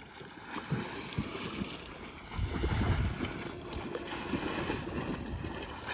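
Lake water splashing and lapping as a swimmer rinses soap off in it, with wind rumbling on the microphone from about two and a half seconds in.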